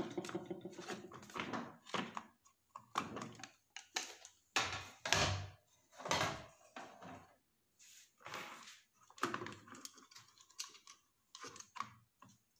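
Plastic housing and glass top of an induction cooktop being handled: irregular knocks, clicks and scrapes as the top panel is lifted off and set down and the parts inside are worked on, the loudest knocks about midway.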